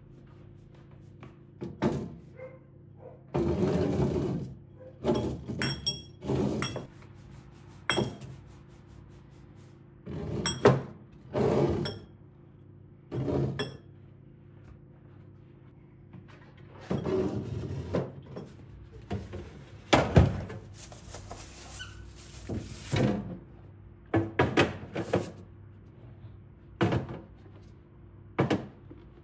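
Containers and kitchen items being handled and set down: an irregular series of thunks and knocks, a few with a short glassy clink, over a low steady hum.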